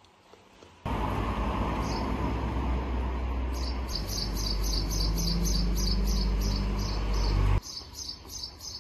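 Wind and road rumble on the microphone of someone riding a bicycle, starting abruptly about a second in and cutting off near the end. From midway a regular run of high chirps, about three a second, goes along with it and carries on after the rumble stops.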